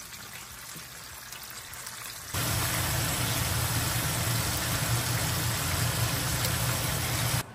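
Battered chicken pieces sizzling in hot deep-frying oil, stirred with a wire skimmer: the second fry of Korean-style double-fried chicken. The sizzle turns much louder about two seconds in.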